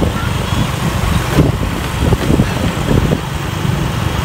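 Motorbike engine and road noise heard while riding on a motorbike, a steady low rumble without a break.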